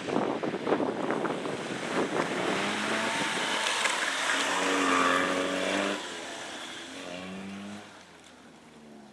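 Car engine revving hard as it drives past on a snowy track, its pitch rising and shifting. The sound drops sharply about six seconds in and fades as the car moves away.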